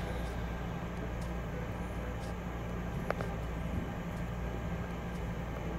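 Steady low room hum, with one faint short tap about three seconds in.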